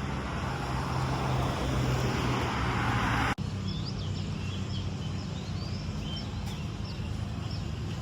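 A vehicle running, a steady low hum with a rushing noise that swells for about three seconds before cutting off abruptly. After the cut, small birds chirp repeatedly over a steady low hum.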